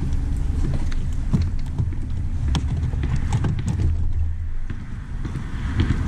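Wind rumbling on the microphone, with scattered short clicks and ticks, as a bass is reeled in and lifted aboard a boat.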